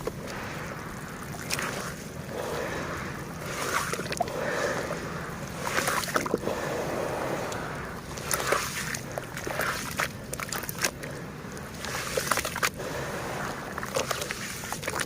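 Lumps of soft red dirt crumbling and breaking apart in water, with sloshing and gurgling and scattered sharp crackles.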